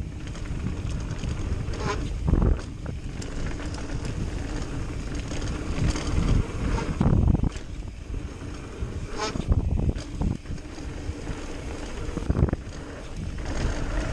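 Mountain bike descending a dirt jump line: wind buffeting the microphone and tyres rumbling over packed dirt, with several loud thumps and rattles from the bike as it lands jumps and rolls through berms.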